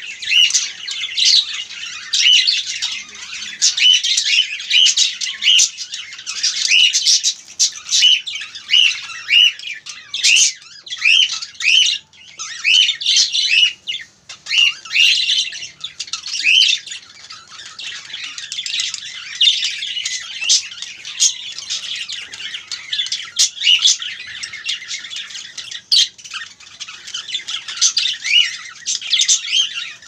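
Budgerigars chattering, a continuous string of quick, short, high chirps and squawks.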